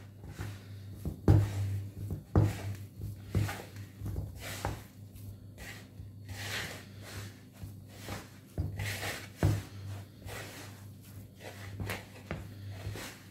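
Hands rubbing, squeezing and pressing damp semolina mixed with grated onion and herbs in a wooden bowl, working it into a dough that holds together on its own moisture. Soft scraping and rustling with irregular dull knocks on the wood, roughly one a second, over a steady low hum.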